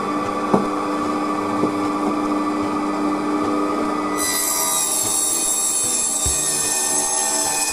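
Proxxon mini table saw running at speed with a steady whine, the blade then cutting into wood from about four seconds in, adding a rougher, higher sawing noise.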